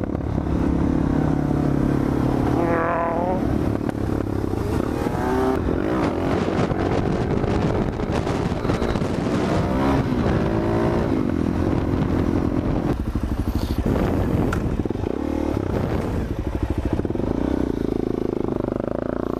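Suzuki DR-Z400SM supermoto's single-cylinder engine under way, its revs climbing and dropping again and again as the rider runs through the gears, with wind rush on the helmet microphone.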